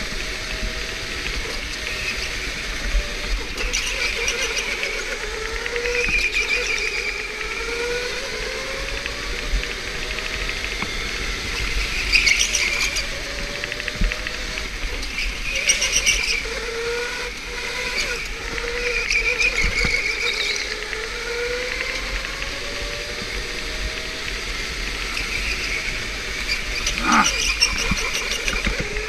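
Electric go-kart motor whining, its pitch rising and falling again and again as the kart speeds up and slows, with tyres squealing in short bursts through the corners several times.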